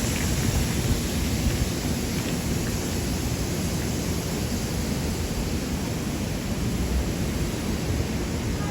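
Steady city street noise: a continuous low traffic rumble with no single event standing out.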